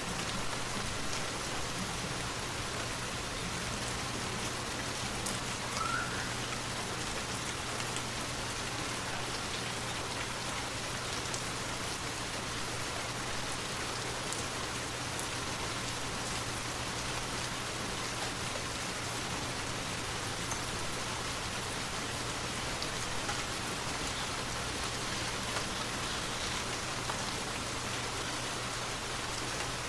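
Forest waterfall: a steady, even rush of falling water with no break, with one brief high chirp about six seconds in.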